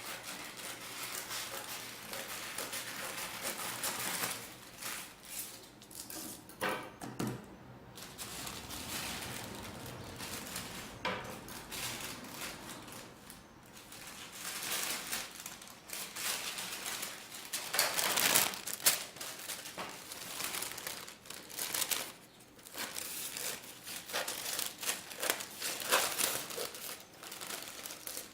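Folded tissue paper rustling and crinkling as it is handled and cut with scissors, in short irregular rustles.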